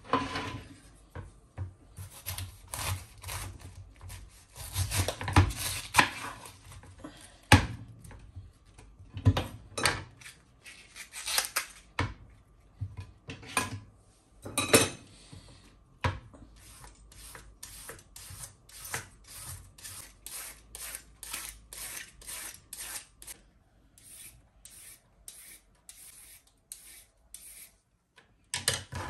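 A kitchen knife cutting and shredding a cabbage on a wooden chopping board, in irregular sharp strokes. In the second half it gives way to a steady scraping rhythm of about two strokes a second as a carrot is pared into thin ribbons over the board.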